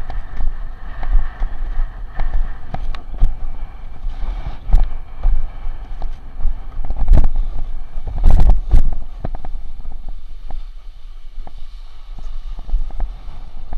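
Wind buffeting the microphone of a camera on a windsurf rig while the board runs over choppy sea, with water rushing and several sharp knocks of the board slapping the chop, the loudest about seven seconds in and a close cluster just after eight seconds.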